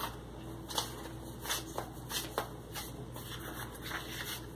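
Loose sheets of coloring-book paper being lifted, slid and turned over by hand: a series of brief papery rustles and swishes, about half a dozen across the few seconds.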